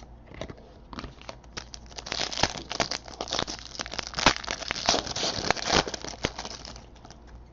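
Basketball trading cards and their foil pack wrappers being handled: quick rustling and crinkling as cards are slid and flipped, busiest in the middle and dying away near the end.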